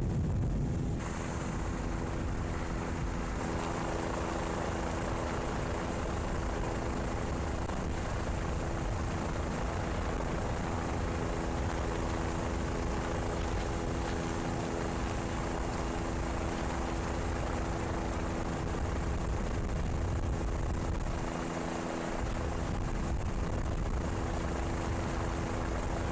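Steady drone of an aircraft engine heard from on board: a constant hum of several even tones over a broad rushing noise.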